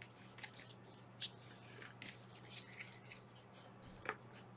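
Faint handling noises: light rustles and a few soft clicks as a magnetic pattern-keeper board is handled, over a low steady hum.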